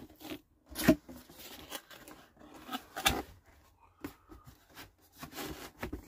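Cardboard packaging being opened and handled: irregular knocks and scrapes of the box, with rustling as a hand reaches in and moves a fabric carry bag. The sharpest knocks come about a second in and about three seconds in.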